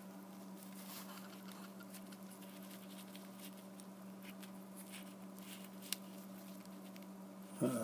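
Faint handling sounds from gloved fingers pressing a small piece of cellulose onto a broken chicken bone: light scattered ticks, with one sharp click about six seconds in, over a steady low hum.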